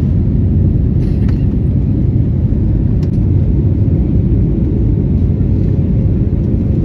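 Jet airliner cabin noise: a steady low rumble of the engines and airflow, heard from inside the passenger cabin while the plane climbs after takeoff.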